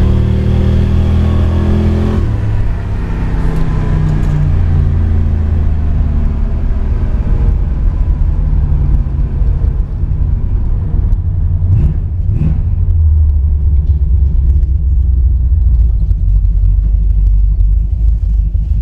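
1972 Chevrolet Nova's V8 engine and exhaust heard from inside the cabin while driving: pulling hard at first, easing off about two seconds in, then running with a low rumble and a brief rise in revs about twelve seconds in.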